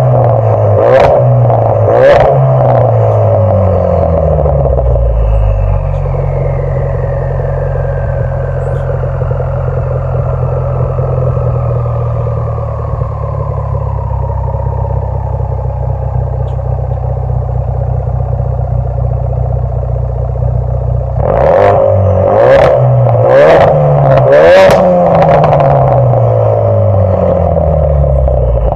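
2016 Ford Focus RS turbocharged 2.3-litre four-cylinder, heard through an Extreme Turbo Systems titanium cat-back exhaust, free-revving with sharp pops and crackles as the revs drop. It settles to a steady idle with a thin whistle slowly falling in pitch. About 21 seconds in comes another run of quick blips, each followed by crackling pops.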